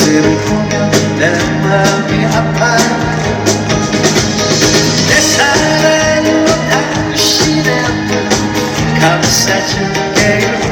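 Live band music: a pop song with a steady drum beat and bass line, with a voice singing over it.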